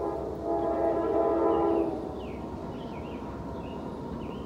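Diesel freight locomotive's multi-note air horn sounding in the distance: the tail of one blast, then a longer blast of about a second and a half. After that, a steady low rumble.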